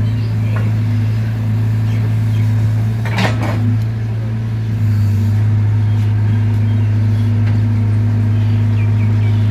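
Tracked excavator's diesel engine running steadily under load as the boom and bucket push the machine up out of a muddy pond. A short burst of noise comes about three seconds in, and the engine note gets a little louder about five seconds in.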